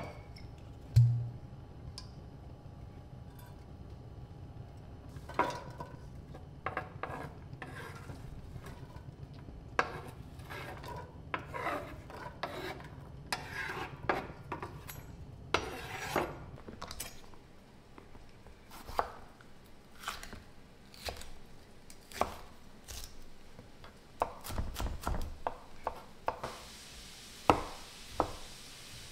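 A wooden spatula scrapes and taps in a stainless steel sauté pan as diced onion is stirred over a gas burner, with a thump about a second in and a low steady hum through the first half. Later a chef's knife chops tomato on a wooden cutting board, with sharp knocks near the end.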